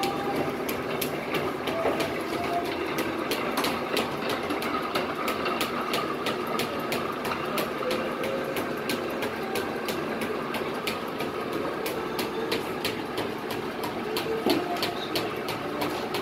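Large bowl-type dough mixer running steadily, with a constant rapid mechanical clatter of many sharp clicks over its running noise.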